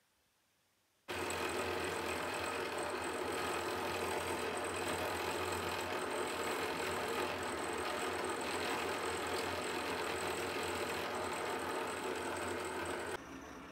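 Motor-driven spinning disc of a workshop spindle machine running steadily, a low hum under a wide hiss, as a carved wooden sculpture is worked against it. It starts abruptly about a second in and drops noticeably quieter shortly before the end.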